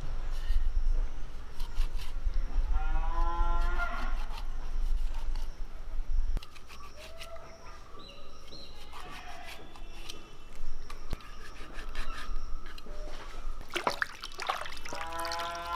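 A cow moos twice, about three seconds in and again near the end, each a single drawn-out call. Under it come the scratching clicks of a knife scoring the scales of a pearl spot fish. Shortly before the second moo, water splashes as it is poured over the fish.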